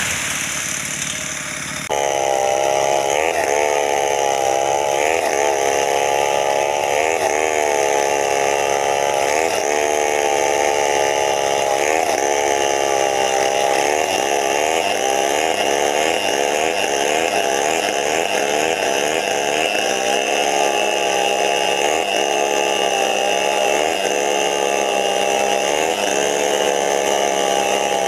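Chainsaw running and cutting wood, starting abruptly about two seconds in, its pitch rising and falling as the engine speed changes.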